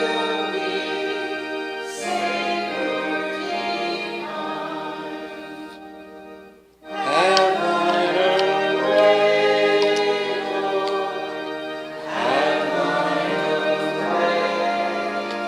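Congregation singing a hymn with organ accompaniment; the singing fades out at the end of a phrase about six seconds in, then starts again.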